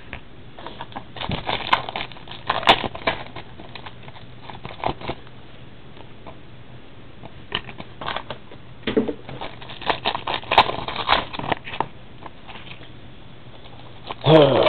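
Trading card packs being opened and cards handled: crinkling wrappers and the clicks of cards flicked through, in two spells of rustling with a quieter stretch of a few seconds between.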